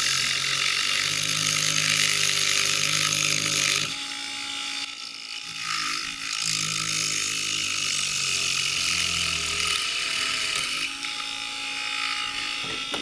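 A Tire Razor machine's small electric motor spins a plastic slot car wheel in a mini lathe while a hand file scrapes against the turning plastic, cutting the outside of the wheel off. The scraping eases for a moment about four seconds in, then picks up again.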